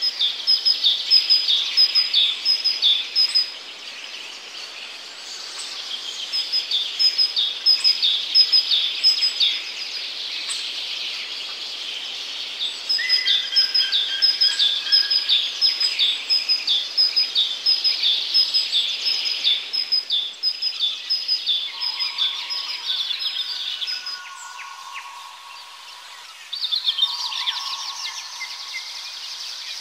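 Songbirds singing: bouts of rapid, repeated high chirping phrases a few seconds long with short pauses, then lower, longer whistled notes in the last few seconds.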